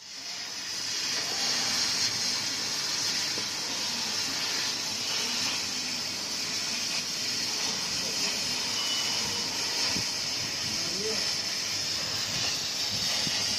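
CO2 laser cutting machine running as it cuts paper card: a steady high hiss without letup, with faint low background noises underneath.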